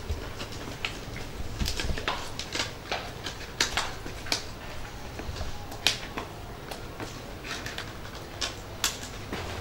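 Scissors snipping through thin empty plastic water bottles, two people cutting at once, each snip a crisp click. The snips come irregularly, about two or three a second.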